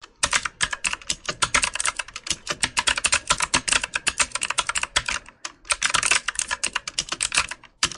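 Computer keyboard typing sound effect: a fast, dense run of key clicks, with a short break about five and a half seconds in.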